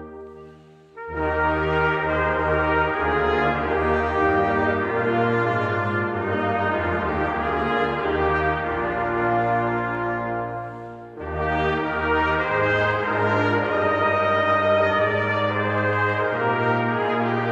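Brass choir of trumpets, trombones and tuba playing held chords in a slow piece. A phrase ends just as the sound begins, the ensemble comes back in about a second in, and after another short break near two-thirds of the way through the next phrase begins.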